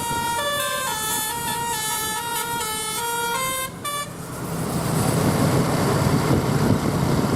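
Bus 'telolet Basuri' musical air horn playing a quick tune of stepped notes, several a second. It stops about four seconds in, and a louder, noisy rush takes over, a vehicle passing close.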